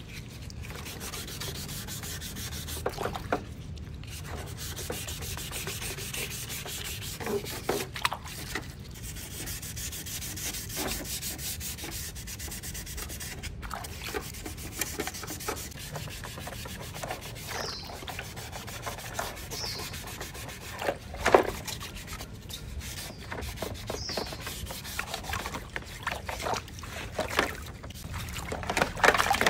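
Sanding pad scrubbing the wet plastic housing of a Casio digital keyboard in a tub of water: a continuous rough rubbing with scattered light knocks and splashes, one louder knock about two-thirds through.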